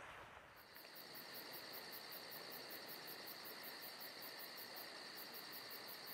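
Faint cricket chirping: a steady high trill pulsing about five times a second, starting about half a second in.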